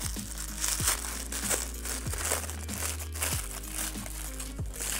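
Wrapping crinkling and rustling in short spells as a small white wrapped bundle from a doll accessory packet is unwrapped by hand, over soft background music.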